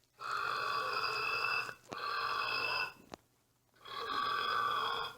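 A man belching three times in a row, each burp drawn out for about a second, with short pauses between them.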